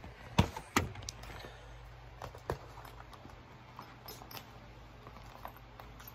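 Two sharp knocks in the first second, then lighter clicks and rustles as a clear plastic fanny pack and its strap are handled.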